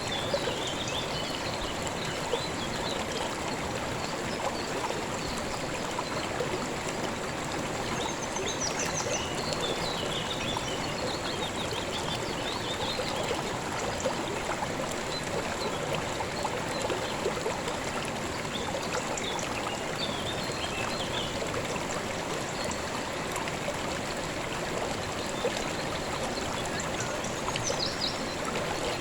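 River water running and babbling steadily over rocks, with birds chirping faintly several times over it.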